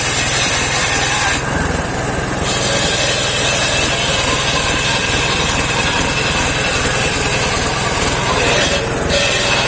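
Engine-driven homemade circular sawmill running with its blade cutting saman wood: a steady engine drone under a loud high sawing hiss. The hiss breaks off for about a second roughly 1.5 s in, and again briefly near the end.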